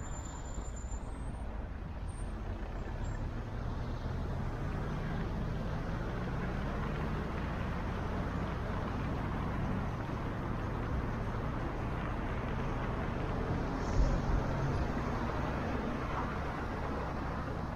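Car driving along a city road: steady engine and tyre noise with a low hum that slowly rises and falls in pitch, and a brief low thump about fourteen seconds in.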